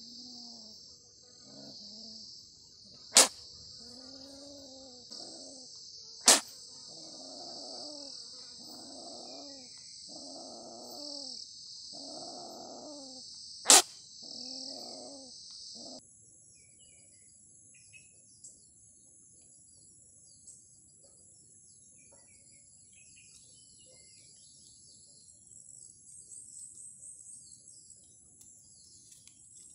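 A trapped Asian palm civet calling over and over, a rising-and-falling growl about once a second, against a steady high insect buzz; three sharp knocks cut through it. About halfway the sound cuts to a quieter background of faint insects and chirps.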